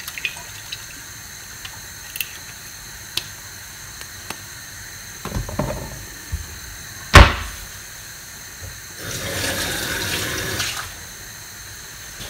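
Kitchen tap running for about two seconds near the end. Before it comes a single loud knock a little past the middle, and small clicks and clatter of kitchenware are heard throughout.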